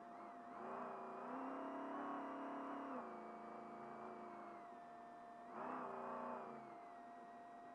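Trophy truck engine heard from inside the cab, revving up under throttle about a second in, easing off around three seconds, and revving up again near six seconds as the truck gathers speed. A steady high tone runs underneath.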